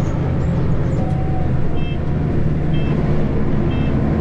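Case Maxxum 125 tractor engine running steadily under load, a loud low hum, heard from inside the cab. From about two seconds in, three short electronic beeps sound just under a second apart.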